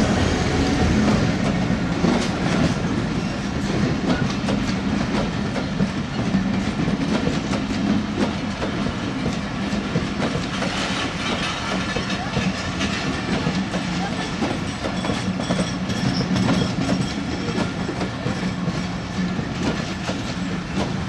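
PT INKA-built broad-gauge passenger coaches rolling past, their wheels clattering steadily over the rail joints with a continuous rumble underneath.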